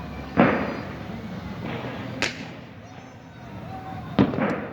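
Fireworks going off: three sharp bangs about two seconds apart, each with a short echoing tail, the first and last the loudest.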